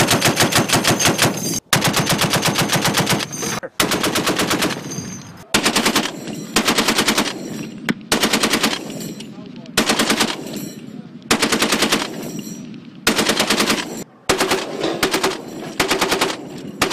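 Belt-fed machine guns firing in bursts: long strings of rapid shots over the first five seconds or so, then a series of shorter bursts about a second each with brief pauses between them.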